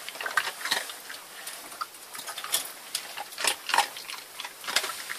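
Jack Russell terrier crunching dry kibble: irregular, crisp crunches a few times a second.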